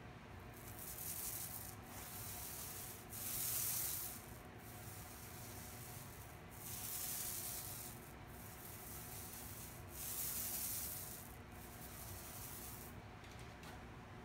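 Small paint roller rolling wet enamel paint onto a steel drawer face: a sticky hiss with each back-and-forth stroke, about eight strokes of a second or two each, dying away about a second before the end.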